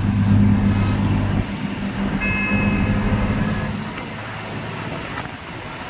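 Motor vehicle engine hum with road noise; the engine hum drops away about a second and a half in, leaving the rushing noise.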